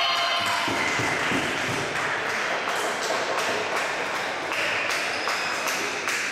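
Floorball players and onlookers cheering and clapping after a goal, with many sharp claps and high-pitched shouts in a reverberant sports hall.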